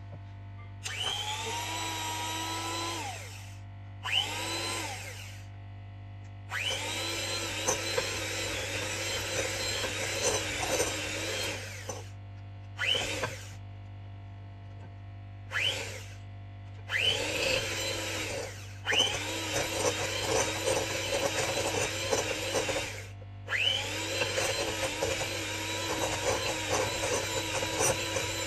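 Sabichi electric hand mixer creaming butter and sugar in a glass bowl, its motor switching on and off in repeated runs. Each run starts with a rising whine and runs steady for up to about five seconds, and the last run continues on.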